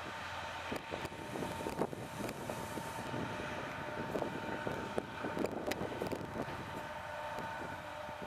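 DRS Class 68 diesel-electric locomotive 68008, with its Caterpillar V16 engine, running as it approaches. A steady whine sits over the engine rumble, with scattered sharp clicks.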